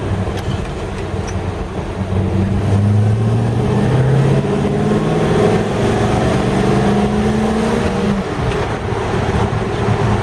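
Holden 253 V8 in a car under way, pulling under load: its note rises over a couple of seconds, holds, then eases off near the end. It runs without pinging or piston rattle, a sign the ignition timing is set right.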